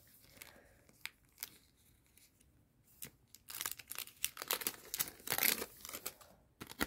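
Paper and clear tape crinkling and tearing as hands peel the film off a small handmade laminated paper patch. It starts with quiet handling, the crinkling picks up about halfway, is loudest shortly before the end, and ends with one sharp click.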